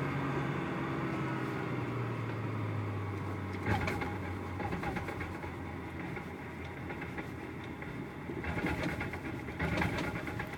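Toyota MX83's driveline, with its W58 five-speed gearbox, running with a steady low drone that sinks slightly in pitch, broken by a rattling clatter about four seconds in and more rattling near the end. The owner takes these for bad driveline noises: something is not right in the drivetrain.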